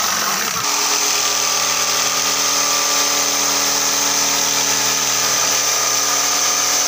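Dongcheng corded electric jigsaw running steadily as its reciprocating blade cuts a curve through a wooden panel: a steady motor hum over the noise of the blade sawing wood.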